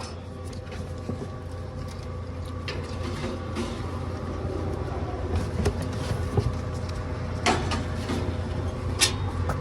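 Aluminium soda cans being loaded into a drink vending machine's columns, giving a few sharp clinks and knocks in the second half, over a steady mechanical hum made up of several tones.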